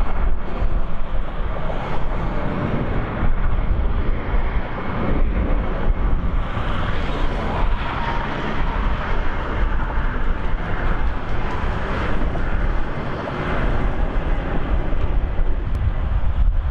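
Boeing 747 freighter's four jet engines at climb power just after takeoff: a steady, deep rumble of jet noise.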